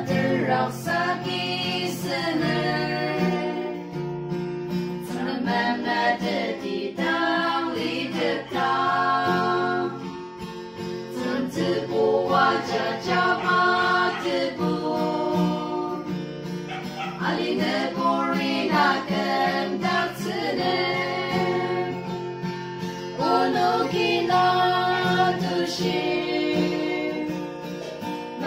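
Four women singing a song together, accompanied by a Yamaha acoustic guitar.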